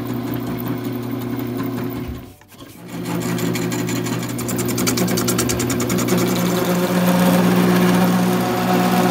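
Wood lathe spinning an apple wood handle blank while a hand-held turning tool cuts it: a steady motor hum under the rasp of the tool on the wood. The cutting breaks off briefly about two and a half seconds in, then resumes with a fast, even, rhythmic chatter as the tool takes down the bowed, out-of-round half of the blank.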